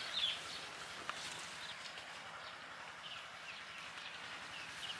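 Quiet rural outdoor ambience with a few short, high bird chirps, most of them near the start.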